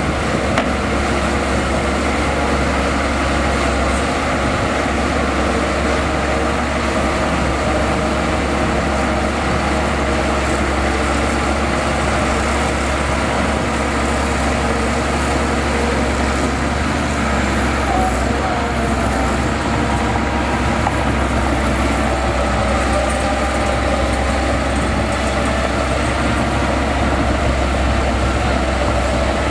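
Bulldozer's diesel engine running steadily, with the continuous din of heavy earthmoving machinery at work.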